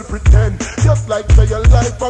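Reggae dancehall riddim played through a sound system: a deep bassline moving between two low notes, a kick drum thumping about twice a second, and a wavering melody line above.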